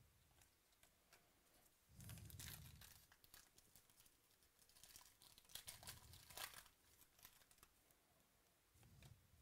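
Faint crinkling and rustling of glossy trading cards being flipped through by hand, loudest in two short spells about two and five seconds in, with a few light clicks of card edges.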